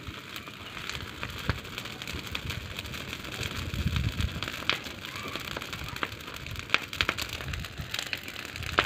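Open fire of dry grass and straw burning under green chickpea plants, crackling with many sharp snaps over a steady hiss.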